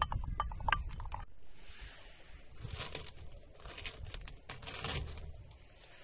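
Wooden spoon clicking and knocking against a ceramic bowl as sauce is stirred, for about the first second. After that come three short hissing rushes, a second or so apart.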